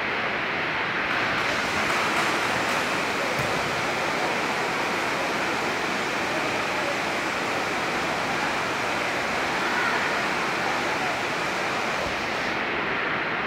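Heavy rain falling on a sports hall's roof: a steady rushing hiss that turns brighter and sharper from about a second in until near the end.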